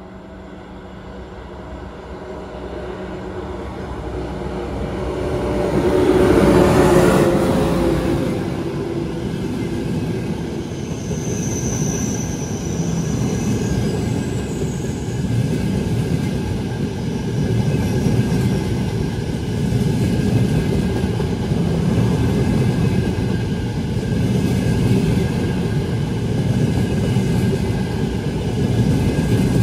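Electric train passing through a station. It grows louder as it approaches and is loudest as the front of the train goes by, about six to seven seconds in. A steady rumble of the cars rolling past follows and carries on to the end.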